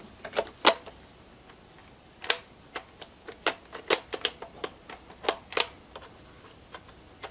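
Irregular sharp plastic clicks and knocks, about two a second, as the loosened plastic D-shaped auxiliary handle of a Greenworks 40V cordless string trimmer is turned on its shaft to change its angle.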